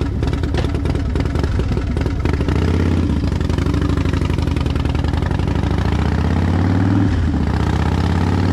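Harley-Davidson Dyna Fat Bob's V-twin engine heard while riding: its note falls as the bike slows, then rises as it accelerates, dips sharply at a gear change about seven seconds in, and climbs again.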